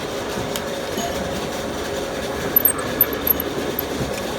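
Steady workshop machinery noise, with a few light metallic clinks about two and a half to three and a half seconds in.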